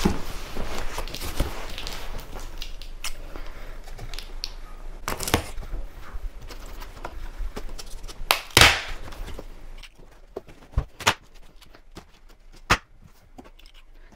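Packing tape being ripped off a large cardboard box, with cardboard scraping and rustling: two longer, louder rips about a third and about two-thirds of the way through, the second the loudest, then a few short sharp clicks and taps on the cardboard.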